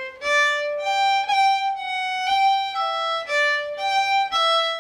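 Solo fiddle playing a phrase of an Irish reel slowly, one bowed note after another at about two notes a second. Repeated notes of the same pitch are split apart with small bow flicks.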